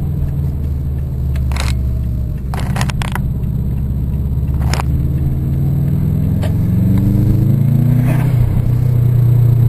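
Turbocharged Subaru Impreza GC8 flat-four engine, with open downpipe and Raceland muffler, heard from inside the cabin. It pulls at low revs, then climbs steadily in pitch and gets louder over the last few seconds as the car accelerates. Several short sharp knocks are heard along the way.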